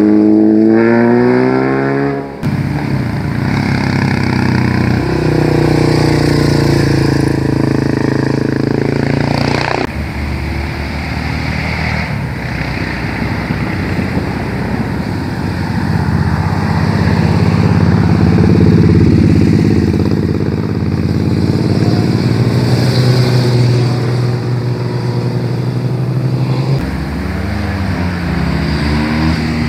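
Motorcycle engines passing close by one after another on a winding road, rising and falling in pitch as the riders work the throttle through the bends. The sound changes abruptly twice, near the start and about a third of the way in.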